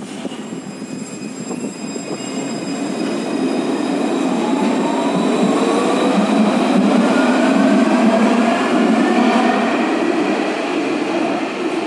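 Luas Alstom Citadis tram pulling away from the platform and accelerating past. Its traction motors whine, rising in pitch, over the rumble of steel wheels on the rails, loudest in the middle as it passes.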